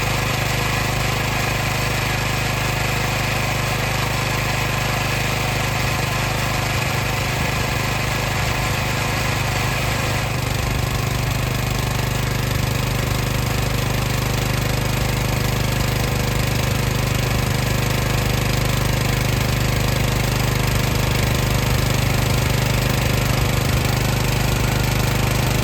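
Water pump running steadily: a continuous mechanical hum with a strong low drone and an even hiss over it. The tone shifts slightly about ten seconds in.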